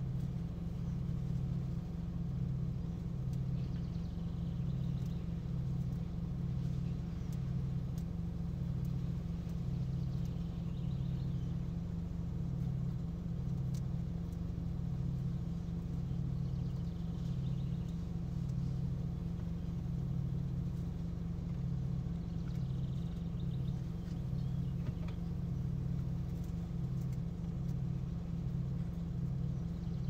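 A loud, steady low drone that pulses about once a second, with a few faint high chirps every several seconds.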